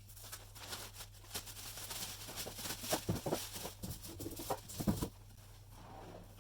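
Cardboard and plastic packaging being handled as a welder is unpacked: irregular rustling and scraping with a few knocks, stopping about five seconds in. A steady low hum runs underneath.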